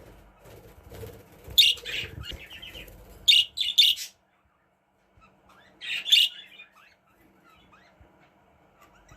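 Budgerigar giving short, sharp chirps: a quick cluster of calls, then one more a couple of seconds later.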